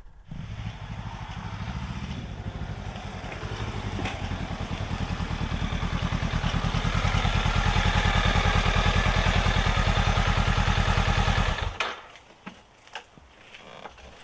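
Honda CB500X's parallel-twin engine running with a steady low firing pulse, growing louder over the first several seconds, then cutting off suddenly near the end as the engine is switched off.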